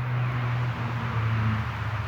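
A low, steady engine-like hum under a broad rushing hiss, swelling a little louder through the middle.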